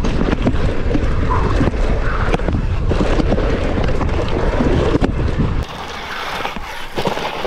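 Wind buffeting a riding camera's microphone while a 16-inch-wheeled kids' mountain bike clatters fast down a dirt track, with many small knocks from the tyres and bike. About five and a half seconds in the wind rumble stops suddenly, leaving a quieter hiss of the tyres skidding through loose dirt in a berm.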